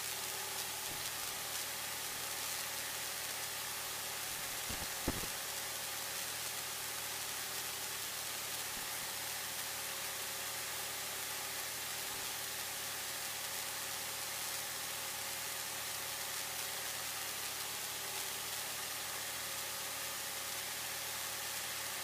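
Steady hiss of a Cessna's intercom feed with its voice-activated headset mics closed, the engine's drone faint beneath it. A short click about five seconds in.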